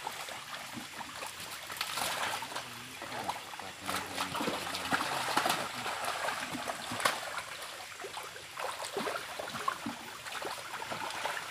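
Irregular splashing and sloshing in shallow muddy pond water as catfish are caught by hand and dropped into a plastic crate, over a steady trickle of running water.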